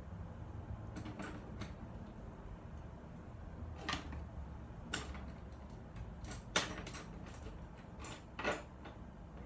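Scattered sharp clicks and light knocks, about half a dozen at uneven spacing, the loudest about two-thirds of the way through, over a low steady hum.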